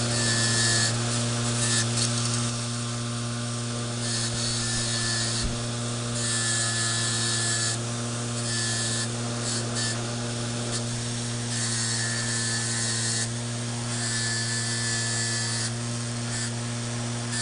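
Bench grinder fitted with a wire wheel, running with a steady motor hum. Small metal locomotive parts are pressed against the wheel in repeated passes of a second or so, each giving a burst of scratchy brushing.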